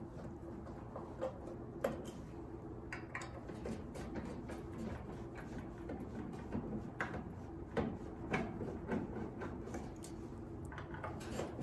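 Scattered light clicks and small metallic taps of screws being worked out of a microwave oven's sheet-metal base, over a faint steady hum.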